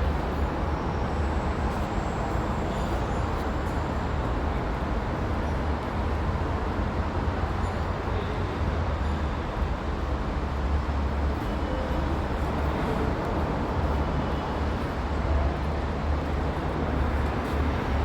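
Steady background rumble and hiss, heaviest in the deep bass, with no distinct events, typical of a parking-garage elevator lobby's ambient noise.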